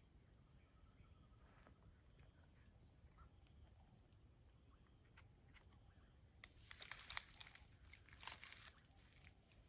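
Mostly quiet, with a faint steady high insect trill running throughout. About two-thirds of the way in comes a couple of seconds of crackly crinkling from a small plastic bag being handled.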